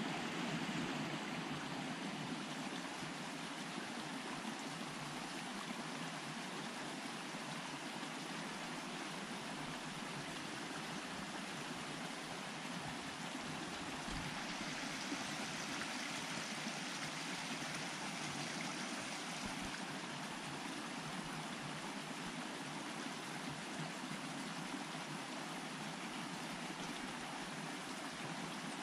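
Mountain stream rushing steadily, an even hiss of running water.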